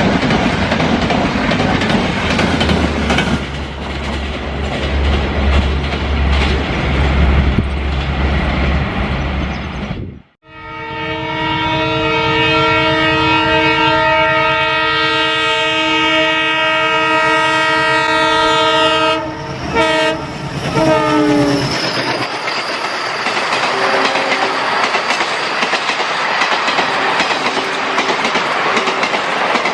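A passing train runs over the track with a low drone for about ten seconds. After a sudden break, a diesel locomotive's multi-tone air horn sounds one long steady blast of about eight seconds, then a few short blasts that slide down in pitch. The coaches then rush past with wheel clickety-clack.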